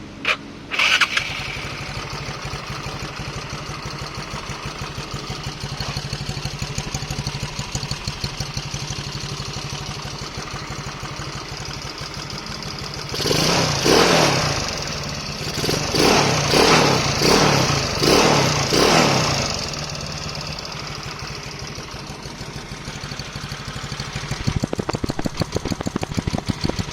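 Yamaha Mio Sporty scooter's single-cylinder engine breathing through a WF Silent Killer aftermarket exhaust. It starts with a short burst right at the beginning and settles into a steady idle. Around the middle it is revved in a series of quick throttle blips, then drops back to idle and turns louder and choppier near the end.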